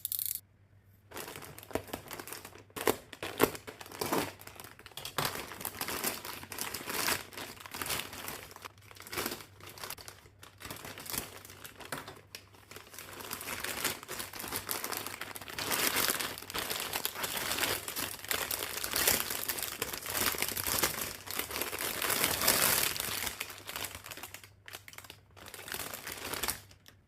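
Packaging crinkling and rustling as it is handled and opened, in uneven crackles that stop just before the end.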